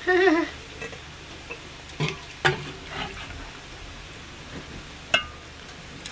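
Hot maple syrup being poured from an enamelware coffee pot into a glass canning jar, a thin liquid trickle over a steady low hiss. There are sharp knocks about two, two and a half and three seconds in, and a ringing clink about five seconds in, as the enamel pot and glass jar touch. A brief wavering voice sounds at the very start.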